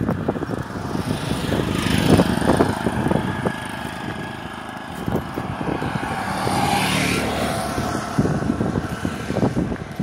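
Wind buffeting the microphone in gusts, with a CNG auto-rickshaw passing close by about six seconds in, its engine swelling and fading as it goes past.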